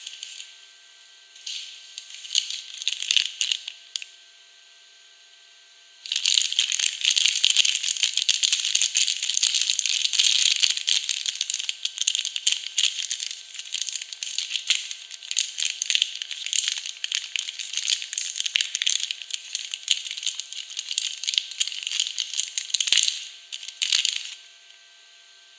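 Soap packaging crinkling and rustling as it is handled and unwrapped: a few short bursts at first, then steady crackly crinkling for most of the time, stopping shortly before the end.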